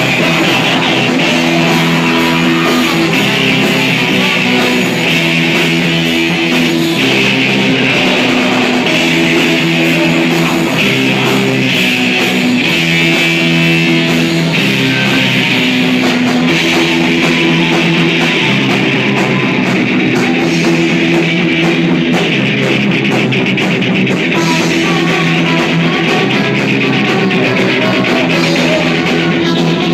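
Live rock band playing loud, with distorted electric guitars, bass guitar and drum kit. The chords are held and change every second or two, over steady cymbal wash.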